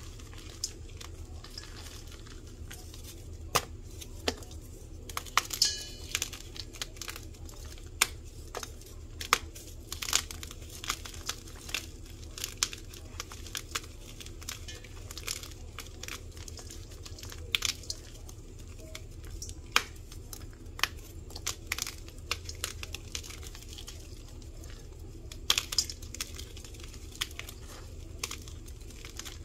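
Hands crushing dyed chalky powder blocks in a metal bowl: irregular sharp crunches and crackles as the blocks break apart and crumble, over a faint steady low hum.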